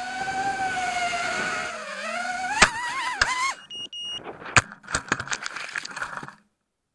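FPV racing quadcopter's Emax 2205 brushless motors whining, the pitch wavering and dipping, then rising as the quad hits something with a sharp knock about two and a half seconds in. More knocks and rattles follow as it crashes and tumbles into the brush, with a short high electronic beep in between, and the sound cuts off near the end.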